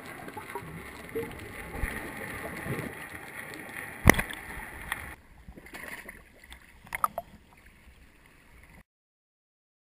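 Muffled underwater sound picked up by a GoPro in its waterproof housing: a gurgling wash of water and bubbles, with one sharp knock about four seconds in and a few lighter clicks later, before the sound cuts off to silence near the end.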